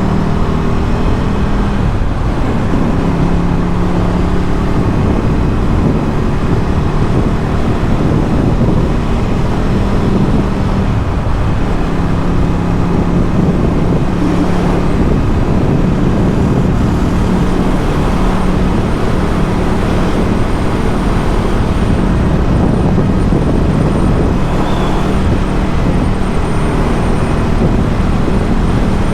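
Ducati Scrambler 1100's air-cooled L-twin engine through a Termignoni exhaust, running at a steady cruise with wind and road noise; the engine note holds fairly even, easing slightly around the middle before settling again.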